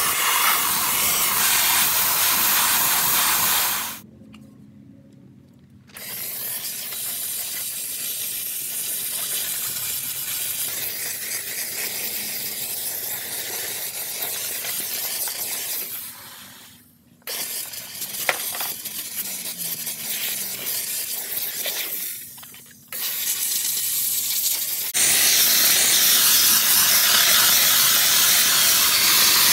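Chief steam cleaner hissing as it blasts steam from its nozzle. The hiss cuts off briefly about four, sixteen and twenty-two seconds in and then resumes. It runs quieter through the middle and is loud again near the end.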